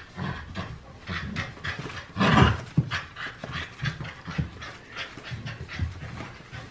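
Bernedoodle puppy tugging at a plush toy: panting and quick scuffling of paws on a laminate floor, with one louder scuffle about two seconds in.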